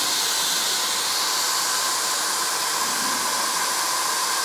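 Hamburger patties sizzling with a steady hiss, pressed between the closed top and bottom grill plates of a Cuisinart Griddler contact grill.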